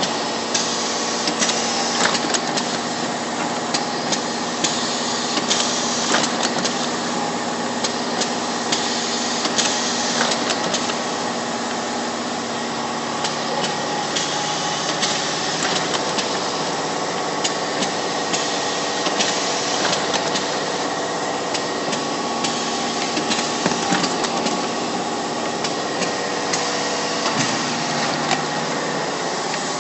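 Automatic cartoning machine running, packing small carton packs into a larger carton: a steady mechanical hum and whine with frequent sharp clicks and knocks from its moving parts.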